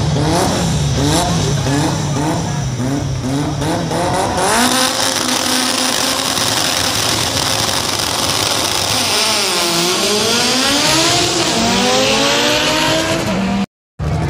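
Drag car engine revving hard at the starting line, its pitch jumping up and down in quick repeated blips, then held at high revs with a strong hiss. Near the end the revs dip and climb again.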